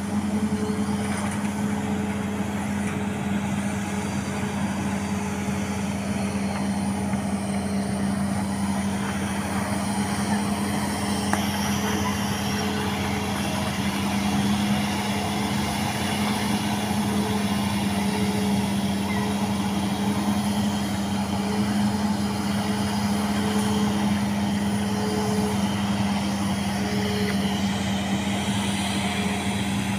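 Engine running steadily at one constant speed, a continuous low drone with no revving.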